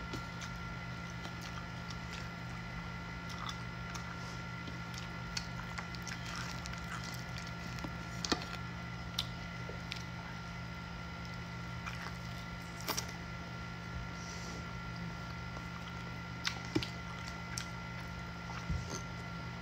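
Close-up eating sounds of someone chewing pieces of pork by hand: soft wet chewing and smacking with scattered small clicks. A steady hum runs underneath.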